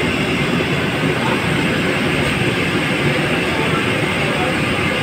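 Steady, loud rushing noise of a gas fire used to heat and brown a lobster thermidor, with kitchen exhaust running under it.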